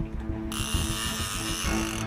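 Background music with steady tones, and about half a second in a big-game fishing reel starts a high, dense mechanical buzz that lasts just over a second.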